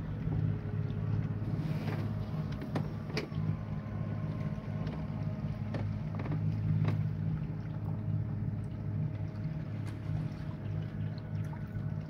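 A small boat's motor running at a steady pace, a constant low drone, with a few short clicks over it.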